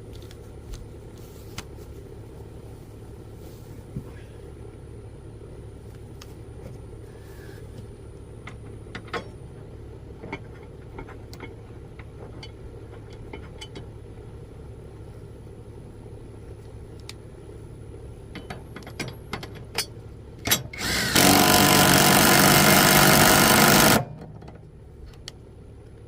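Bauer brushless 3/8-inch impact wrench tightening the bolt on a lawnmower blade: two short trigger pulls, then about three seconds of continuous loud hammering near the end. Before that, small metal clicks of the blade and bolt being handled over a steady low hum.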